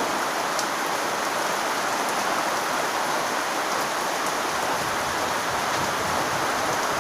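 Heavy rain pouring down in a storm: a dense, steady hiss of rain with no let-up.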